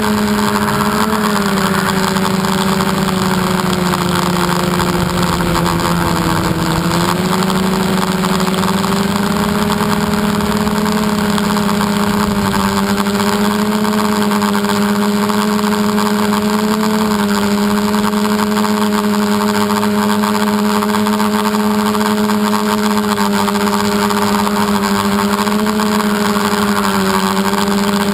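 The RC aircraft's motor and propeller droning steadily, heard from the onboard camera with wind rush. The pitch sags slightly a second or two in and comes back up about seven seconds in as the throttle changes.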